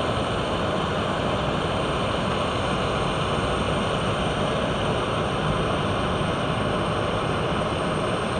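Jet airliner engines (an Embraer 170's turbofans) running, a steady rushing noise that neither rises nor falls, with a faint high whine.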